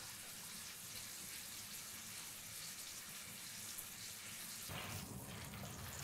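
Beef roast searing in butter in a stainless steel frying pan: a faint, steady sizzle. About three-quarters of the way through, a low rustling joins as the roast is handled and lifted with tongs.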